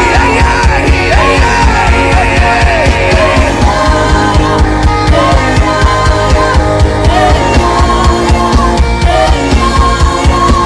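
Worship band music with a steady, driving beat and one melodic lead line sliding up and down over sustained chords.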